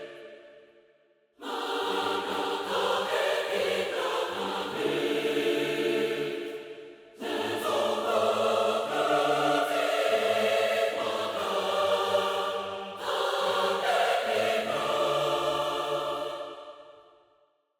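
Epic choral music in D minor: a mixed choir singing over a string section, the strings switching between very short staccatissimo notes and legato. It starts after about a second and a half of silence, cuts off just before seven seconds in and starts again, dips briefly around thirteen seconds, and fades out near the end.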